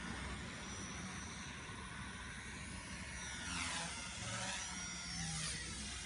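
WLToys V977 RC helicopter flying: the high whine of its electric motor and rotors, the pitch sweeping down and back up several times in the second half as it manoeuvres and passes. Wind rumbles on the microphone underneath.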